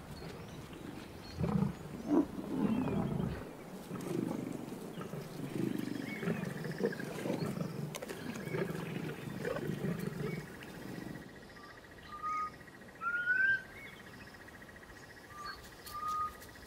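Lions growling in irregular low, rough bouts over a freshly downed buffalo calf, for most of the first ten seconds. Short rising bird chirps follow near the end.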